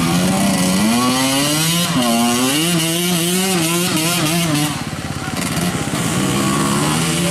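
Two-stroke dirt bike engine revving unevenly under load in mud, its pitch wavering up and down as the throttle is worked. It eases off about five seconds in, then picks up again.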